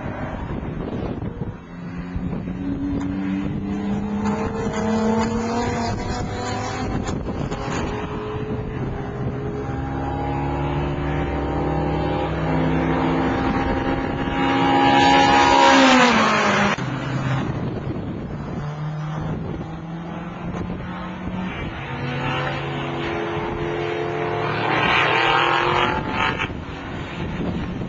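Car engines at hard throttle on a race track, the pitch climbing and dropping back in steps as they shift up through the gears. About halfway through a car passes close by, the loudest moment, with the pitch falling sharply as it goes past. Another pass comes near the end.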